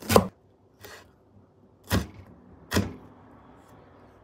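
Chef's knife slicing through a red bell pepper and striking a wooden cutting board: three sharp knocks with a fainter tap between the first two.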